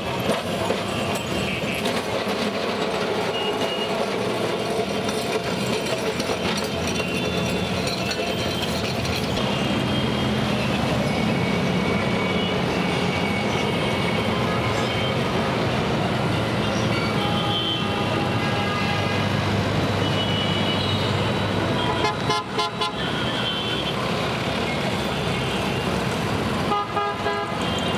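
Busy city-street traffic: motor engines running with frequent short horn toots from many vehicles. Twice near the end comes a quick rattling.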